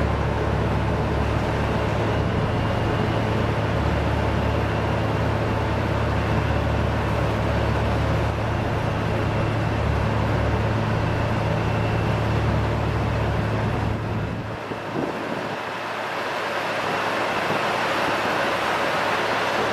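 Roadtec RX500 cold planer milling asphalt: a steady heavy diesel drone under the gritty rush of millings rattling off the conveyor into a dump truck bed. About 14 seconds in, the deep drone drops away and the hiss and rattle of the falling millings come forward.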